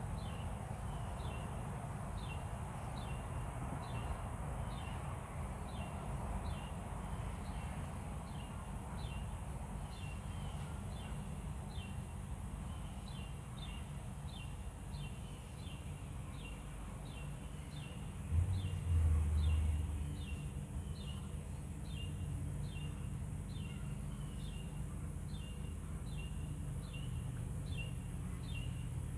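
Outdoor garden ambience: a bird repeats a short, falling chirp evenly, about one and a half times a second, over a steady low rumble. About two-thirds of the way through, a brief louder low rumble rises and fades.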